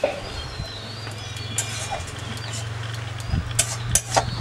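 A metal spatula stirs and scrapes a thick masala paste in a wok, with several sharp knocks of the spatula against the pan about a second and a half in and in a quick cluster near the end. A steady low hum runs underneath.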